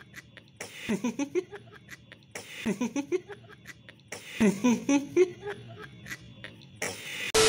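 A man laughing in three near-identical bouts about two seconds apart, each one falling in pitch. Just before the end a sudden loud blast of noise with a steady tone cuts in.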